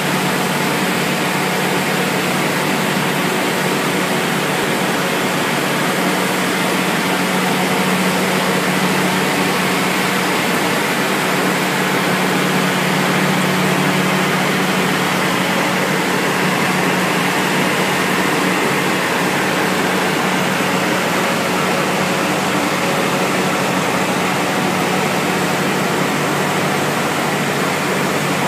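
Wood sawdust pellet line running: vertical centrifugal pellet mills and belt conveyors making a steady, loud mechanical noise with a constant low hum.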